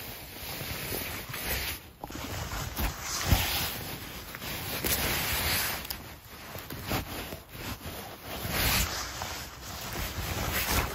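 Moss, grass and jacket sleeves rustling and scraping as gloved hands pick funnel chanterelles from the forest floor, in irregular swells with a sharper click about three seconds in.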